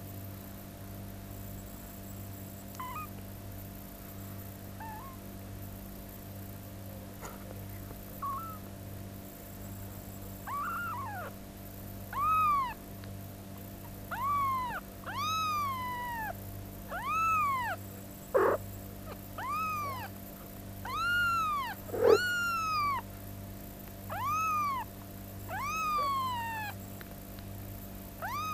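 Two-week-old kitten mewing over and over in high-pitched calls that each rise and fall. A few faint, scattered mews give way about a third of the way in to a steady run of louder ones, about one every second or so. Two sharp knocks cut in during the second half.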